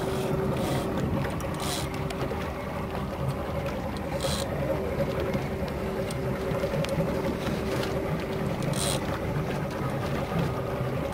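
A boat's motor running steadily at low speed, an even hum with a faint whine over it. Three brief hisses come about 2, 4 and 9 seconds in.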